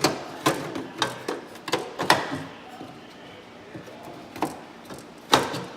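A series of irregular sharp knocks and taps, quick ones in the first two seconds, then a few more near the end, the loudest a little after five seconds: hand work on a snowmobile chassis while the foot pan is fitted back on.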